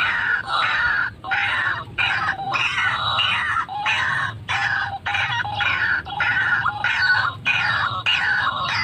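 White-breasted waterhen (ruak-ruak) calling loudly and without a break: harsh, repeated 'kru-ak' notes at about two a second.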